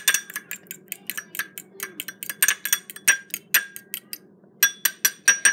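Metal fork beating an egg-white and coconut-oil mixture in a glass bowl: quick, irregular clinks of metal on glass, several a second, with a short pause about four seconds in.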